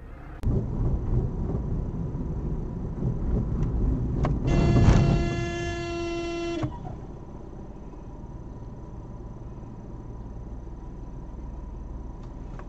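A vehicle horn sounds one steady, unbroken blast of about two seconds over loud road and traffic noise, then cuts off. After it comes the quieter, steady hum of a car driving.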